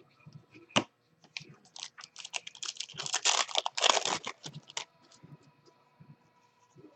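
Foil wrapper of a baseball card pack being torn open and crinkled: a sharp snap, then a few seconds of dense crackling that fades out.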